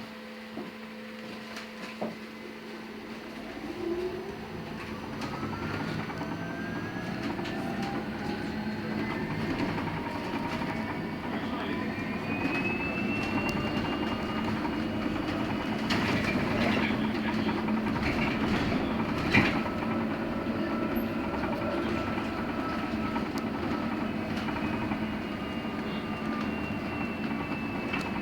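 LiAZ-6274 electric bus heard from inside the cabin, its traction motor whine rising in pitch as it pulls away and then holding steady at speed, over road and tyre noise. A few sharp rattles and knocks come from the body partway through.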